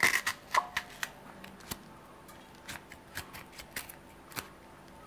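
Small knife slicing through a green chilli held in the hand over a glass bowl: a string of sharp, irregular clicks as the blade cuts.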